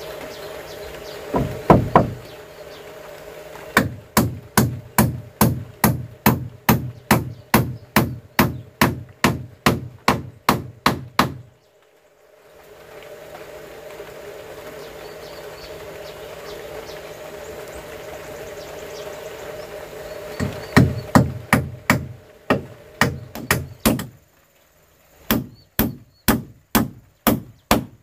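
Steel claw hammer striking wooden planks and posts in quick, even runs of blows about three a second, with a long break in the middle.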